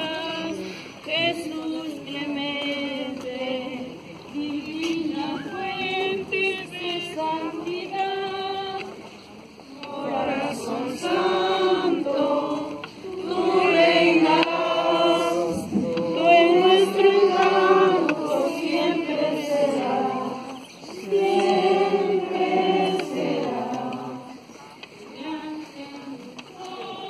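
A group of voices, women's prominent, singing a slow religious hymn together in long phrases of held notes, with short breaths between phrases.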